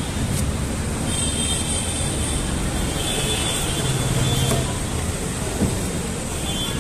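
Steady road traffic noise from passing vehicles, swelling briefly about four seconds in, with a few faint sharp knocks.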